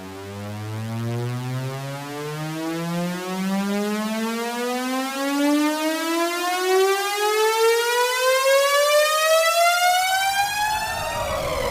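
A synthesized siren-like riser: one buzzy electronic tone sweeping slowly and steadily upward in pitch while growing louder. Near the end a second sweep comes in, falling in pitch.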